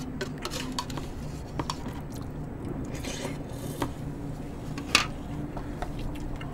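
Eating sounds at a table: chewing and sipping of pork bone soup, with scattered light clicks of a spoon and chopsticks against plastic bowls and one sharper click about five seconds in.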